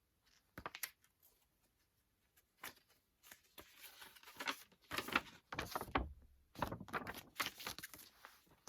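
Packaging and merchandise being handled: a few separate clicks and knocks, then about three seconds in a longer spell of rustling and crinkling with more knocks mixed in.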